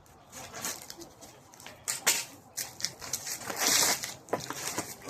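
Birch bark being worked off a stick in a thin spiral strip: irregular scraping and crackling, with two sharp snaps about two seconds in and a longer rasping tear a little past three and a half seconds.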